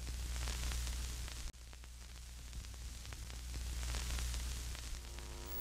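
Television static sound effect: a steady hiss of white noise over a low hum. It drops out for an instant about a second and a half in, and a buzzing tone joins near the end.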